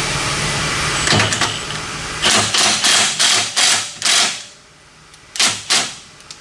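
A tool working a 21 mm suspension bolt loose: a quick series of short, sharp mechanical bursts about three a second, a pause, then two more bursts near the end.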